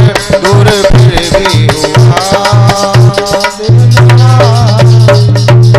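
Instrumental music of a Hindi ghazal without vocals. A melody line bends and wavers in pitch over a steady percussion beat. A deep bass note pulses with the beat and then holds from a little past halfway.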